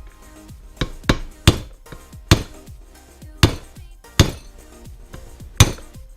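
Hammer blows on the pinion of a 1995 BMW 318ti differential, driving the pinion shaft out of the housing: about seven sharp strikes at uneven intervals.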